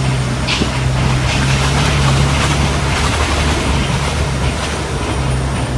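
Vehicle engine running steadily at low speed on a rough concrete track, with short knocks and rattles over the bumps.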